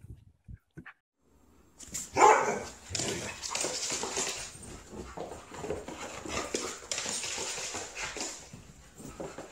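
Siberian husky barking and vocalizing: a few short sounds in the first second, then a loud bark about two seconds in, followed by a continuous run of barks and whines until near the end.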